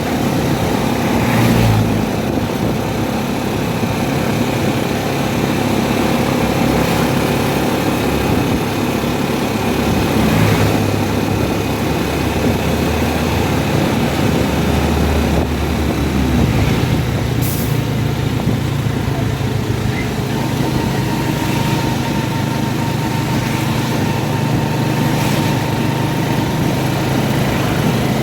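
Motor vehicle engine running steadily with road noise: a continuous low hum, with a few brief, louder noises along the way.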